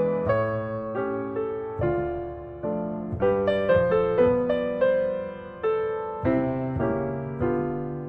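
Background piano music: gentle chords struck one after another, each fading before the next.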